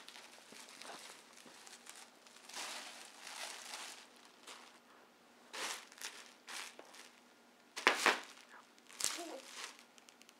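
Plastic bubble wrap crinkling as a toddler presses and crawls on it with hands and feet, with a few sharp cracks; the loudest is a close pair about eight seconds in.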